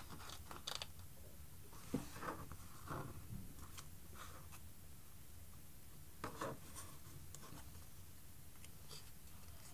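Light handling sounds of thin card model-building parts: scattered small taps, clicks and rubs as the pieces are picked up and set against each other on a cutting mat, the most distinct ones about two seconds in and a little past six seconds.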